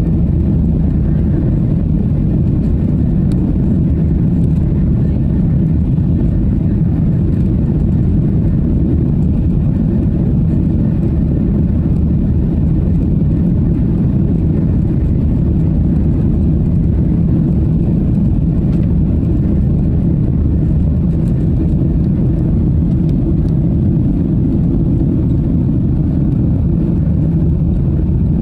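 Steady low drone of a Skymark Boeing 737-800's engines and the rushing airflow, heard inside the cabin beside the wing during the climb after takeoff.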